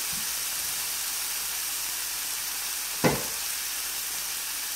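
Diced shallots frying in oil and steak drippings in a hot pan, sizzling steadily, with one short thump about three seconds in.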